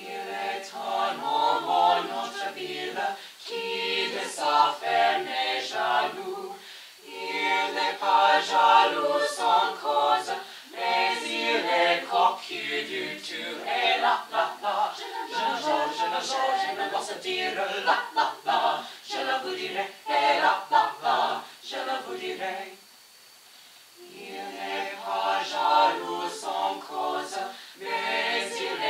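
Small mixed vocal ensemble of eight young male and female singers singing a cappella in harmony, phrase by phrase. The singing stops for a second or two about three-quarters of the way through, then starts again.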